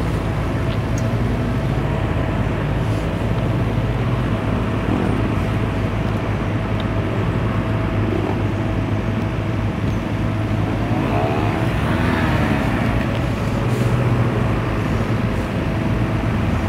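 Road traffic at a standstill: motorcycle, car and bus engines idling close around, a steady low hum. About eleven seconds in, a nearby engine rises and falls in pitch for a couple of seconds as a vehicle revs or moves off.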